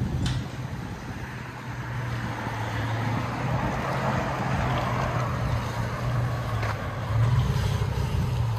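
A 2005 Ram 1500's 5.7 L Hemi V8 running through a Black Widow Widow Maker muffler: a steady low exhaust drone at low engine speed that gets louder about seven seconds in.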